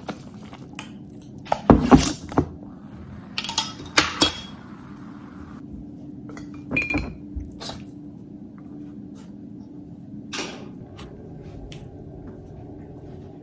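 Glassware and dishes being handled: clinks and knocks, loudest about two and four seconds in, with a short hiss around four to five seconds, then a few scattered light clicks.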